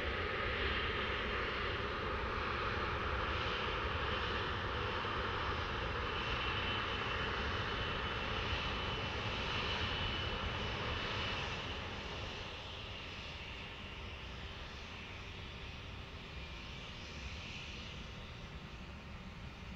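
Turbofan engines of a twin rear-engined business jet during its landing rollout: a steady jet rush with a faint high whine, growing quieter about twelve seconds in.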